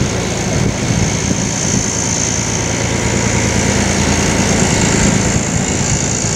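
The diesel engine of an LDH diesel-hydraulic shunting locomotive running steadily while it shunts tank wagons, a low engine note under a steady high hiss.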